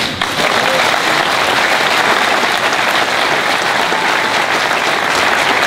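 Audience applauding, a dense steady clapping that starts as the speech breaks off.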